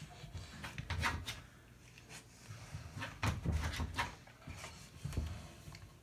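A wooden door bumping and rattling in a string of uneven knocks and thumps as a dog paws and pushes at it from the other side, trying to reach treats beyond the gap under it.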